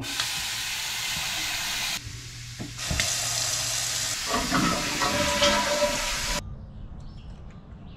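Water running from faucets into sinks: a steady rush from a bathroom tap for about two seconds, then after a short break a kitchen tap running into the sink, which stops about six seconds in.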